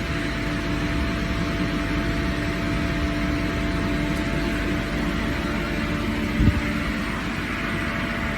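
Kaeser rotary screw air compressor running under load from a cold start, a steady hum with a droning tone over rushing air, as it pumps up an air receiver toward 10 bar. A brief low thump about two thirds of the way through.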